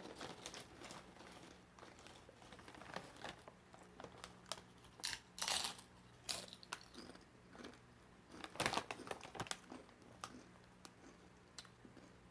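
A chip bag crinkling as it is handled, in scattered short rustles, loudest about five seconds in and again near nine seconds, over a faint steady low hum.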